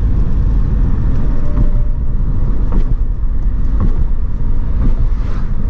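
Steady rumble of road and engine noise inside a Hyundai car's cabin while cruising on a highway.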